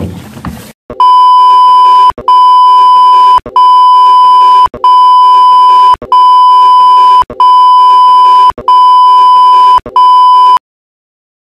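Television colour-bars test tone: a loud, steady, high-pitched beep that starts about a second in and repeats as about eight long beeps, each just over a second, with brief breaks between them, then cuts off suddenly near the end.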